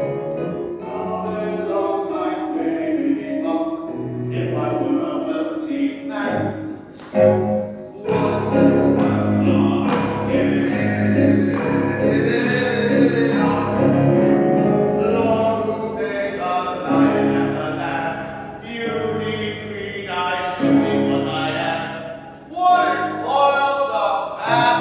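A man singing a musical-theatre song over instrumental accompaniment.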